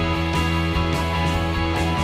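Background music with held notes over a steady bass line.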